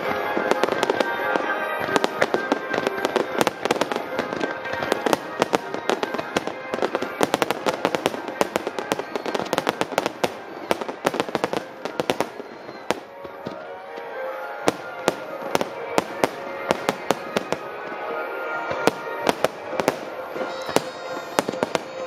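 Fireworks barrage: many aerial shells bursting in rapid succession, a dense run of sharp bangs and crackles, several a second, over music playing throughout. The bangs grow thicker and louder in the last few seconds.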